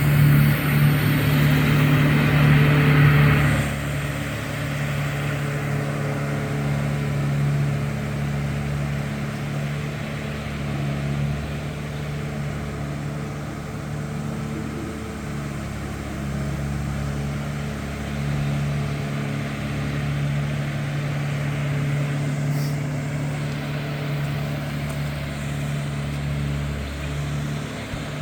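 A motor vehicle's engine running with a steady low hum. For the first few seconds it is louder, with a hiss over it, then it settles to a steady drone.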